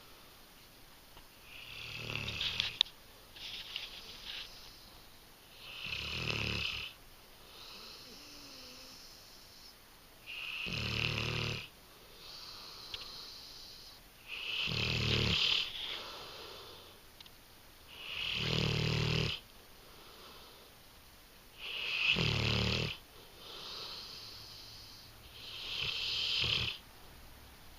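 English Mastiff snoring in her sleep: a loud snore about every four seconds, with softer breaths in between.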